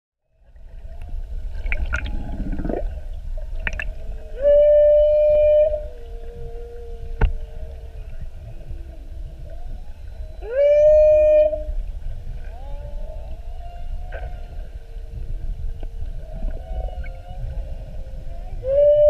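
Humpback whale calls heard underwater: three loud calls about six seconds apart, each rising quickly into a steady held tone, with fainter low moans and short grunts between them over a low water rumble. A single sharp click comes about seven seconds in.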